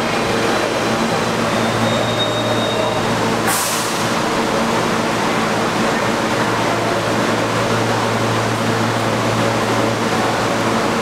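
R160 subway car standing at the platform, its air-conditioning and auxiliary equipment running with a steady hum and whir. A short hiss cuts in about three and a half seconds in.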